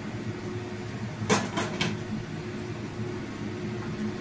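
A glass pan lid set down on a frying pan: a sharp clack about a second in, then two lighter knocks as it settles, over a steady low hum.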